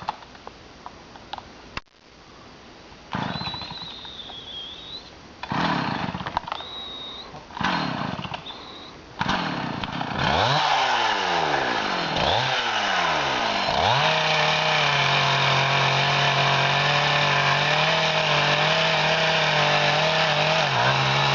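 Two-stroke chainsaw engine that fires in a few short bursts before catching about nine seconds in. It revs up and down several times, then runs steadily at high speed from about fourteen seconds in, as when cutting into a tree trunk.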